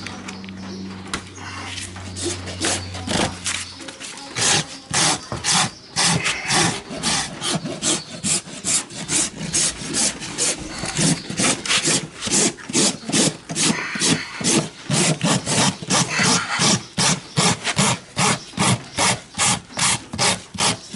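Farrier's rasp filing a hardened urethane glue-on shoe on a horse's hoof to shape it. The rasp goes back and forth in regular strokes, about two a second, and becomes steady and loud about four seconds in.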